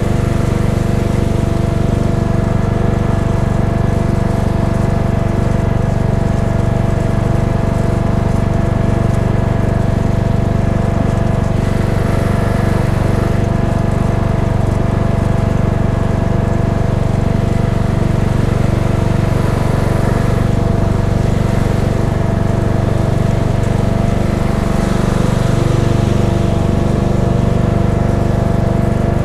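Cub Cadet XT1 riding lawn tractor's engine running steadily under load while towing a dethatcher across the lawn. Its pitch sags and wavers briefly near the end.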